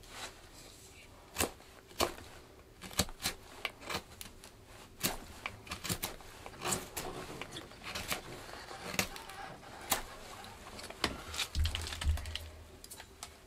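A freshly Scandi-sharpened Mora Companion knife carving knotty wood: a string of sharp, irregular slicing cuts as shavings come off the blade.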